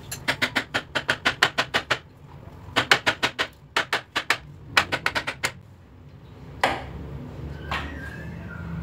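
A 10 mm wrench clicking rapidly as it is worked back and forth on a starter-motor mounting bolt: four quick runs of metallic clicks, about eight a second, then a couple of single knocks near the end.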